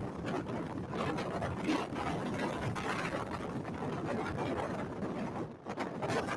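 Steady rushing wind and vehicle noise from a storm-chase vehicle near a tornado, with a brief lull about five and a half seconds in.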